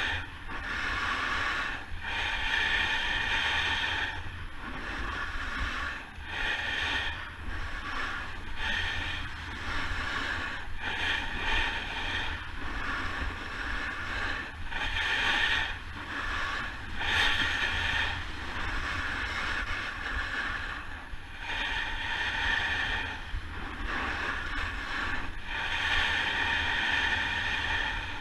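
Snowboard edge hissing and scraping over groomed snow during a fast descent, swelling and easing every second or two as the board turns. A steady low wind rumble sits on the microphone underneath.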